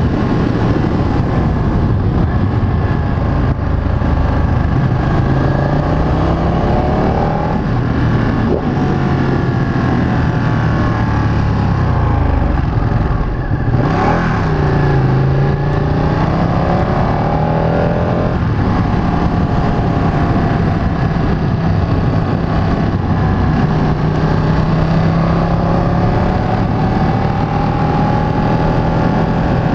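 Ducati 959 Panigale's Superquadro L-twin engine under way, its note climbing several times and each time dropping back sharply. There is a short sharp crack about halfway through.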